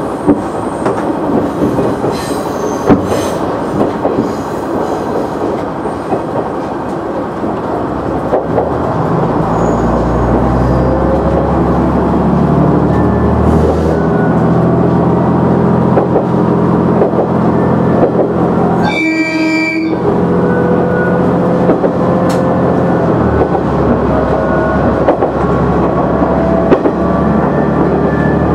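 KiHa 100 diesel railcar's engine running under the cab, its low drone growing stronger about a third of the way in and then rising slowly in pitch as the train gathers speed, with faint wheel clicks on the rail joints. One short horn blast sounds a little past two-thirds of the way through.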